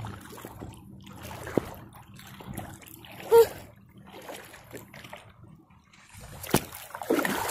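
Water sloshing and bubbling around a submerged phone microphone as it is pushed through shallow water, sounding muffled, with scattered pops and knocks and one louder pop a little past three seconds in.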